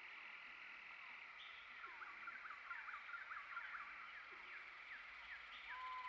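Faint forest ambience: a steady high background drone, with quick flurries of short bird chirps starting about two seconds in. A single held whistle starts near the end.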